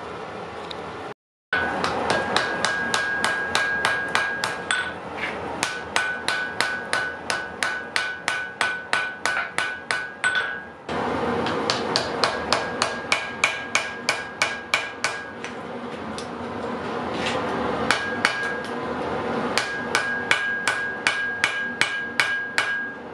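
A hand hammer strikes a red-hot iron axe head on an anvil, about three to four blows a second, in several runs with short breaks. The anvil rings with each run of blows.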